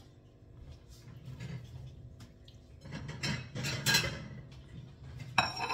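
Kitchen utensils being handled on a countertop: a spell of clattering about halfway through, and a louder ringing clink of metal near the end.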